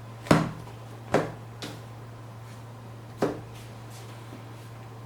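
Three sharp knocks of handling against a hard surface, the first the loudest and the others about a second and three seconds after it, over a steady low hum.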